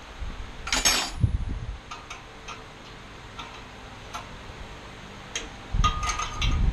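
Metal tools and parts being handled during band saw disassembly, clinking and clattering. A brief scraping rattle comes about a second in, then scattered light ticks, and near the end a cluster of knocks with a short metallic ring.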